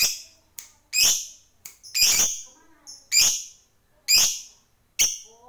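Caged lovebird giving loud, shrill single calls, about one a second, six in all.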